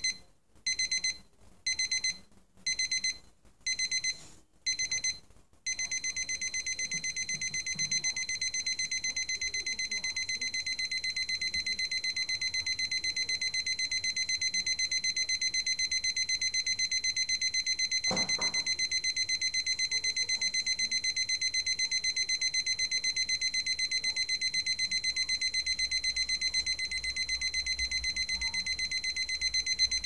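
Casio TQ-156 alarm clock's electronic alarm beeping in short bursts a little more than once a second. About five and a half seconds in it steps up to its next stage, a continuous fast beeping.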